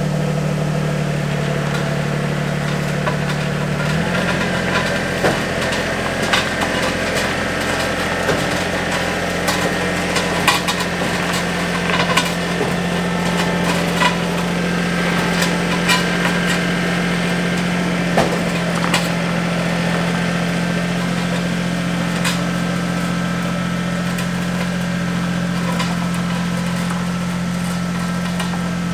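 Car engine running steadily, its drone shifting slightly in pitch about four seconds in, with scattered clicks and rattles over it.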